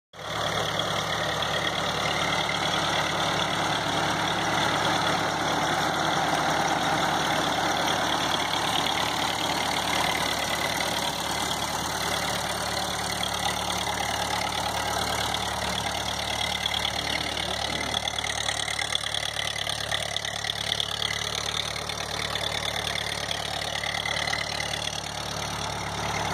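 Ford 8N tractor's four-cylinder gasoline engine idling steadily.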